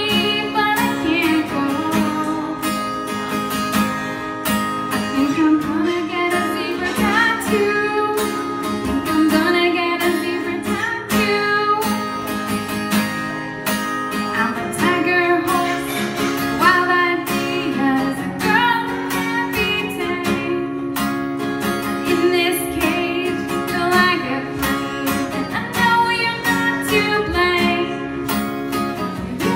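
A woman singing while strumming an acoustic guitar in a steady rhythm, live.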